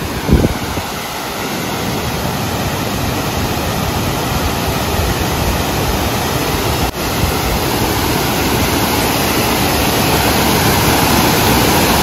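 Waterfall: water crashing down in a steady, dense rushing noise that grows slowly louder. There is one momentary break about seven seconds in.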